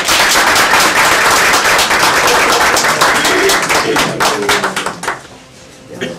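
Small group applauding, a dense patter of hand claps that dies away about five seconds in.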